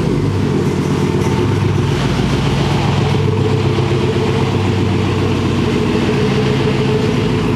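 An engine running steadily at idle, having started just before.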